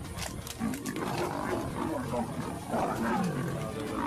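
Lions growling in several rough, low growls while attacking a buffalo.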